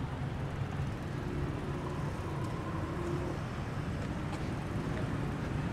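Street traffic ambience: a steady low rumble of cars and motorbikes passing a town road junction.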